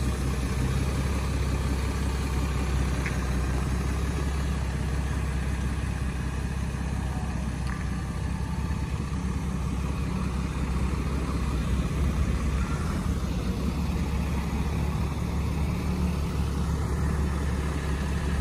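Ram 2500 heavy-duty pickup truck's engine idling, a low, steady rumble.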